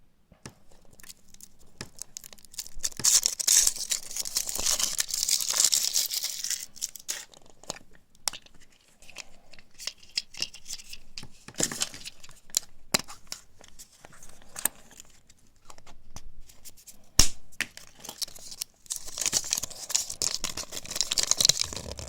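Foil wrapper of a Kinder Surprise chocolate egg being torn open and crinkled, in two long spells of rustling, with scattered sharp clicks and taps in between.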